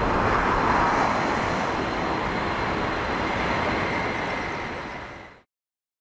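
Steady roar of an Emirates Airbus A380's four jet engines as the airliner touches down and rolls out. It eases slightly, then cuts off abruptly to silence about five seconds in.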